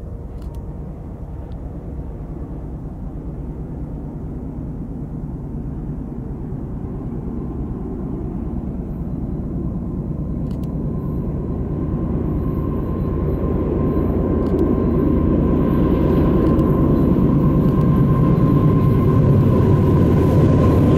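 Diesel freight locomotives approaching, their low rumble growing steadily louder, with a thin steady whine joining about halfway through.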